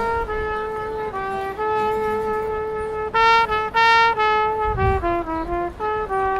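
Trumpet playing a slow melody of long held notes in a single line, with two louder, brighter notes a little past the middle.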